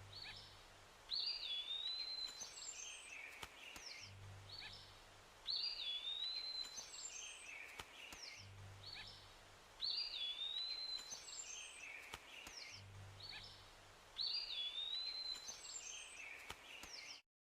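Jungle ambience sound effect: bird calls, including a whistled note that rises and then drops, over a low hum. The same few-second loop repeats four times and cuts off suddenly near the end.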